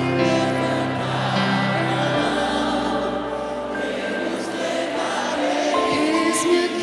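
Live worship music with many voices singing over long held chords, the low bass note changing about two seconds in.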